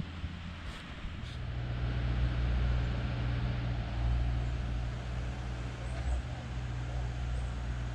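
A vehicle engine running steadily: a low hum that strengthens about a second in, over an even hiss.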